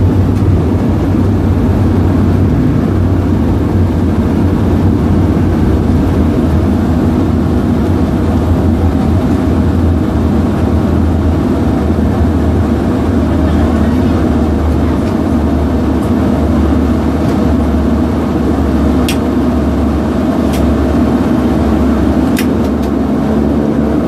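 Let L-410 Turbolet's turboprop engines and propellers heard from inside the cabin, a steady low drone as the plane taxis along the runway after landing. A few faint clicks come near the end.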